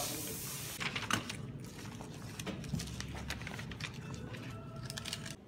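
A rush of noise that fades out within the first second, then irregular clicks and light knocks over a low steady background.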